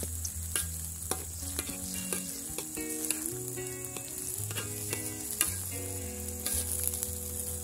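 A metal ladle stirring and scraping through shredded cassava leaves and pork rind crackers in an aluminium wok, clicking against the pan at irregular intervals, over a steady hiss of the simmering liquid.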